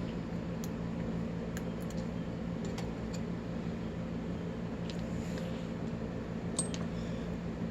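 Steady background hum with a few faint, sharp clicks of small metal padlock parts being handled during disassembly.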